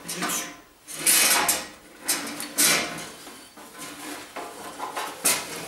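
The engine cover of an AS Motor Freerider 800 ride-on mower being worked loose and lifted off its frame: several short scrapes and knocks as the cover rubs and bumps against the chassis.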